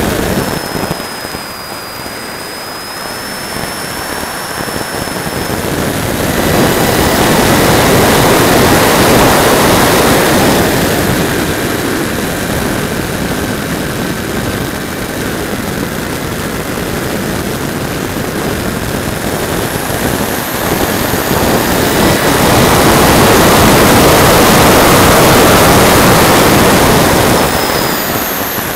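Wind rushing over the onboard keyfob camera of a Radjet electric RC plane in flight, mixed with the high whine of its 3800 kV motor and 5x5 propeller. The rush swells and fades twice as the plane manoeuvres, and a thin high tone that rises slightly shows in the first few seconds.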